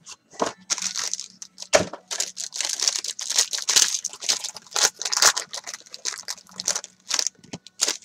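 Plastic shrink wrap crinkling and tearing in rapid, irregular crackles as a sealed box of baseball cards is torn open by hand.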